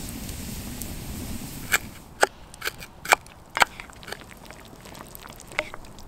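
Wood campfire crackling: a soft, even rush at first, then a series of sharp pops and snaps from the burning wood.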